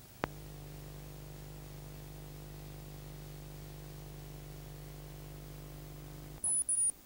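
Videotape audio at an edit point: a sharp click, then a steady low electrical hum. Near the end there are several short, loud bursts of noise with a high-pitched whistle.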